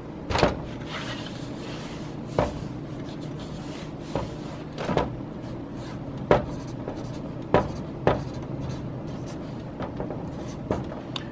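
Restaurant dining-room tone: a steady low hum, with scattered sharp clicks and clinks of dishes and tableware, one every second or so.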